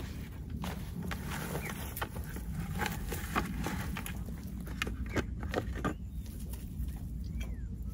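Scattered sharp clicks and knocks of freshwater pearl mussel shells being handled and put into a plastic bucket, over a steady low rumble.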